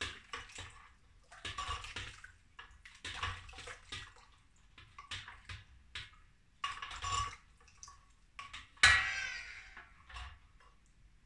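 Kitchen utensils sloshing and knocking in a stainless steel bowl of sanitiser liquid as they are swished around, in short irregular splashes. One loud metallic clank rings out about nine seconds in.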